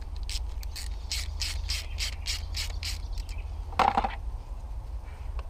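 A steel worm-drive hose clamp on a silicone coolant hose being tightened with a hand tool: a quick, even run of clicks, about five a second, for two to three seconds, then a brief squeak about four seconds in.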